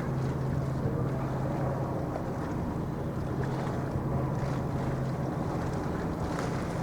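Steady low drone of a ship's engine, with wind rushing on the microphone.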